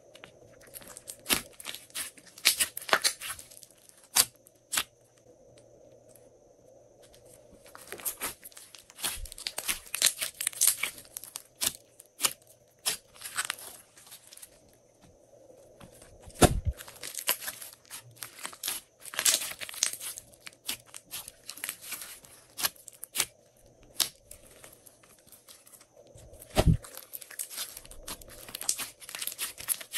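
Glossy slime being stretched, folded and pressed by hand, giving clusters of sticky crackling clicks and pops in bursts of a few seconds with quieter pauses between. Two dull thuds stand out, about halfway through and again near the end.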